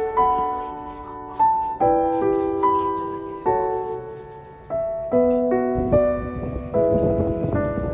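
Background piano music: a gentle melody of single struck notes over chords.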